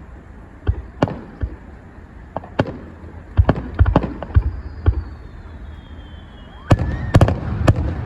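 Fireworks going off: a string of sharp bangs and cracks at irregular intervals, thickening into a burst of loud bangs near the end.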